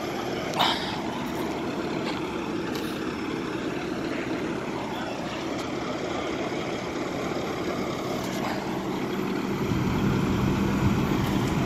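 Fire engine's diesel engine running steadily, a low drone that grows louder about ten seconds in. There is a brief sharp click about half a second in.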